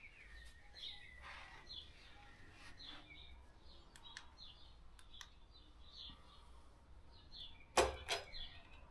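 Birds chirping faintly in the background, short repeated calls throughout, with two sharp knocks close together near the end.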